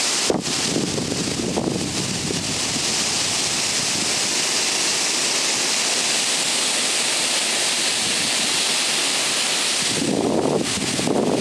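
Tropical storm wind and heavy rain: a steady loud hiss of rain and thrashing trees, with gusts buffeting the microphone about a second in and again near the end.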